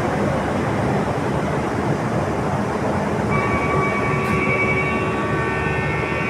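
A passing train running with a steady, dense rumble. About halfway through, a train horn sounds one steady chord of several notes, held for about three seconds.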